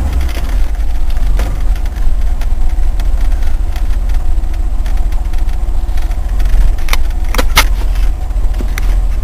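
Range Rover's Rover 3.5-litre V8 running, heard from inside the cabin as a steady low rumble. A few sharp clicks or rattles come about seven seconds in.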